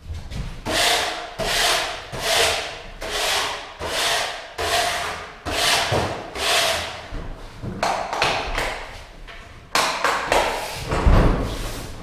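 Steady back-and-forth rubbing strokes of hand work, a little more than one a second, then a few sharp clacks and a low thump in the last two seconds.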